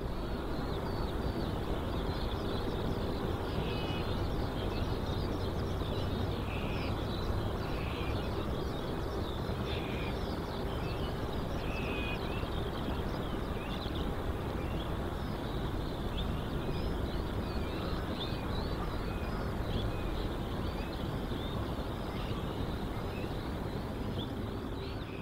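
Many small birds chirping over a steady low rumble.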